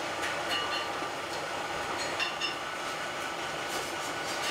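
Coal forge fire burning under a forced air blast: a steady rushing noise, with a few faint high-pitched ticks.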